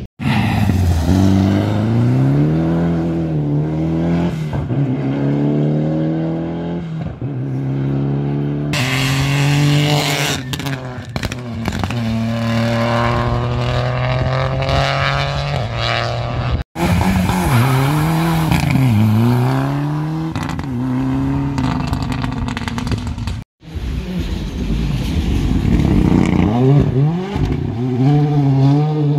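Rally cars' engines revving hard as they pass at speed, the pitch climbing and then dropping sharply again and again with each gear change and lift. The sound cuts out briefly twice.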